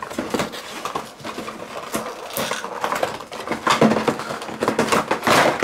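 Cardboard toy boxes being handled and opened: a busy run of irregular rustles, flap scrapes and small knocks against the table.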